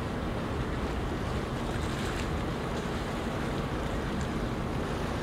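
Steady waterside ambience of wind and water: a constant low rumble and hiss with no distinct events.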